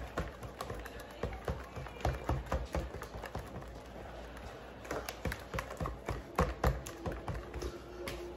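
Spatula beating eggs into a thick melted-chocolate mixture in a plastic mixing bowl: irregular taps and clacks against the bowl, a few a second, with a short pause about halfway through.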